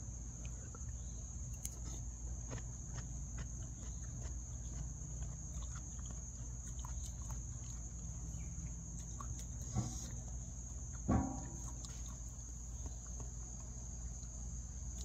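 Steady high-pitched chorus of crickets. Faint clicks of a metal spoon against the bowl, and two short louder sounds about ten and eleven seconds in.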